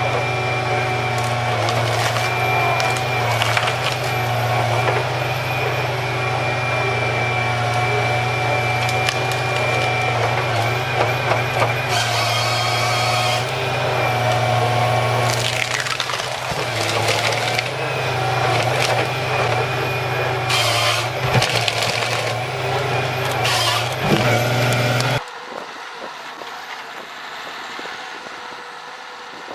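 Heavy forestry machine's engine running steadily under load, with wood cracking and splintering over it. About 25 seconds in the sound drops abruptly to a much quieter windy background.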